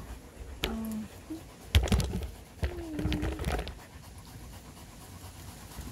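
A dog panting close by, with a few sharp knocks about two seconds in.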